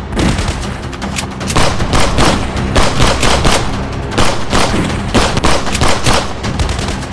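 Gunfire sound effects: many rapid shots, several a second at an irregular pace, over background music.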